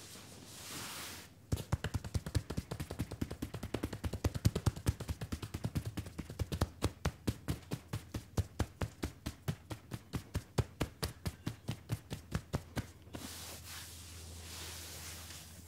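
Fast percussive massage strikes with loosely closed fists on jean-covered lower legs, several strikes a second, starting about a second and a half in and stopping shortly before the end. Before and after them, hands rub along the denim with a soft hiss.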